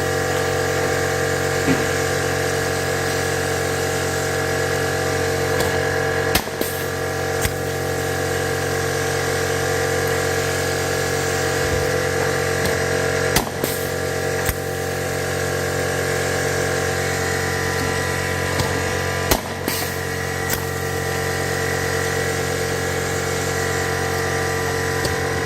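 Pneumohydraulic blind-rivet gun setting rivets one after another: sharp snaps in pairs about a second apart, a pair roughly every six seconds, as each rivet is pulled and its mandrel breaks off. A steady mechanical hum runs underneath throughout.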